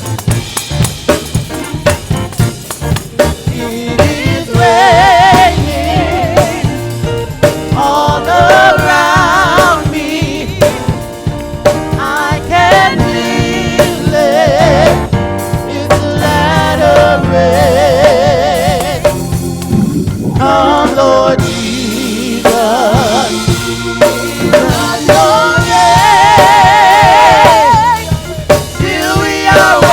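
Live gospel band playing: a drum kit keeps a groove with snare and bass drum while singers hold long notes with vibrato.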